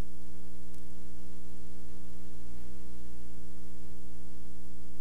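Loud, steady electrical mains hum and buzz on the broadcast audio, a stack of low tones over faint hiss. The pitch wavers briefly about two and a half seconds in.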